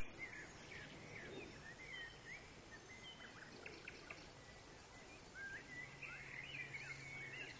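Faint outdoor ambience with small birds chirping and singing in short, varied phrases over a soft steady hiss. A faint low hum comes and goes in the background.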